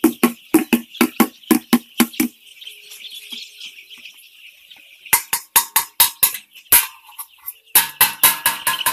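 Background music with a fast, steady drum beat over the continuous high peeping of a large flock of week-old chicks. The beat drops out for a few seconds about two seconds in, leaving the chicks' peeping alone, then comes back.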